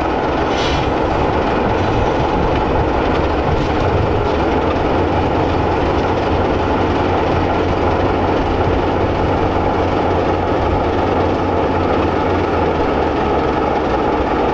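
Class 33 diesel locomotive hauling a passenger train past, its Sulzer engine running steadily with a deep low hum, and the coaches rolling along the track.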